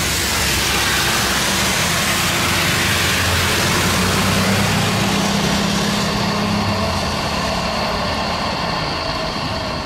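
A Citilink twin-engine jet airliner on its take-off roll down a wet runway: a continuous jet engine roar with a low steady engine tone, mixed with the hiss of water spray. The roar is loudest about four to five seconds in, and the hiss grows duller after that.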